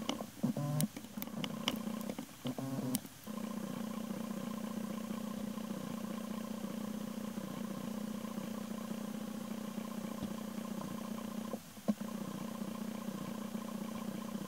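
A steady low hum with a few sharp clicks and a wavering stretch in the first three seconds, dropping out briefly once near the end.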